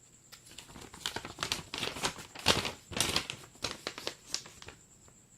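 Packaging being handled and crumpled by hand, a dense run of crinkling and crackling for about four and a half seconds that stops near the end.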